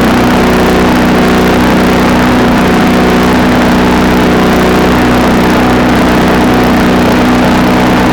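Harbor Freight Predator 62323 wood chipper's gas engine running at a steady speed after a cold start on six-month-old fuel.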